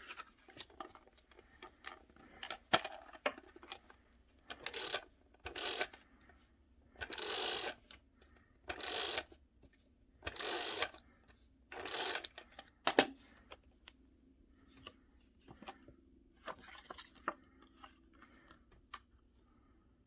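Paper crafting handling sounds: about half a dozen scraping, rustling strokes of paper being rubbed and worked on a journal page, each lasting up to a second, with small clicks and taps between and softer rustles toward the end.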